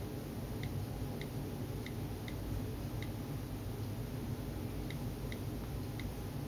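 Faint, irregular ticks of typing a password on an iPad's on-screen keyboard, about eight keypresses, over a low steady room hum.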